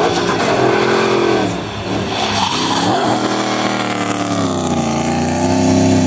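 Drift car's engine revving hard through a slide, its pitch dipping and climbing again a couple of times as the throttle is worked, over the screech of spinning, smoking rear tyres.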